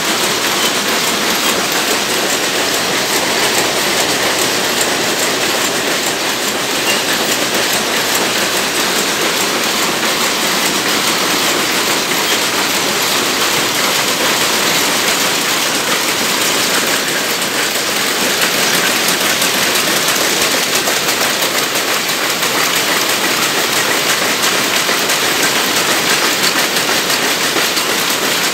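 Several rapier looms running together, a steady, rapid mechanical clatter.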